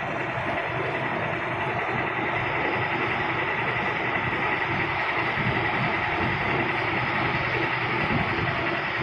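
Roll-fed printing machine running, its rollers turning with a steady mechanical rattle and a thin high whine.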